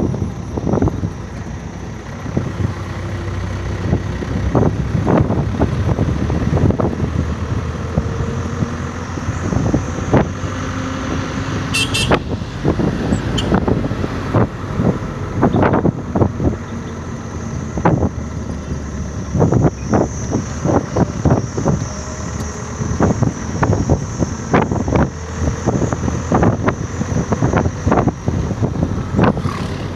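Wind gusting and buffeting against a microphone held out of a moving vehicle's window, in irregular bursts over the steady rumble of the engine and tyres on the road.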